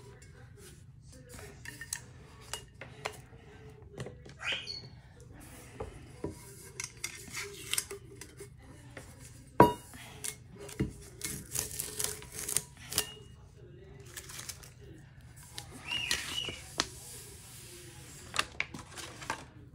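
Hands unwrapping sublimation tumblers: heat tape and sublimation paper peeling and rustling, with scattered clicks and knocks as the metal tumblers are handled and set down, the sharpest knock about halfway through.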